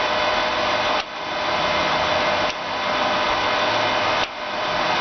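Jones and Shipman 540 surface grinder running under hydraulic power: a steady hum of the hydraulic pump and the spinning grinding wheel, with a brief dip in level about every one and a half seconds.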